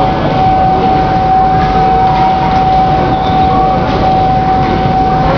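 Passenger coaches of an arriving train rolling slowly past a station platform: a steady rumble and rattle of wheels on rails, with one constant high-pitched squeal held throughout.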